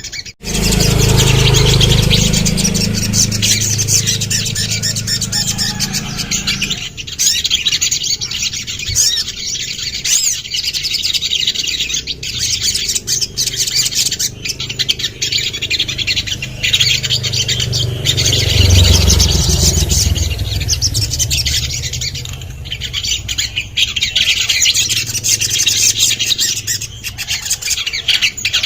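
Sogon (ruby-cheeked sunbird) singing: a busy run of high, rapid chirps and trills that goes on without a break. A loud low rumble sits under it during the first several seconds and comes back for a few seconds past the middle.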